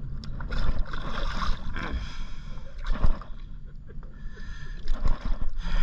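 Water splashing in several short bursts as a hooked fish thrashes and is grabbed by hand at the surface.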